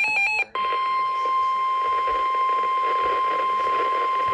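A rapidly alternating electronic beeping cuts off about half a second in. After a brief gap a single steady alert tone of about 1050 Hz sounds over radio hiss: the NOAA Weather Radio warning alarm tone that precedes a warning broadcast.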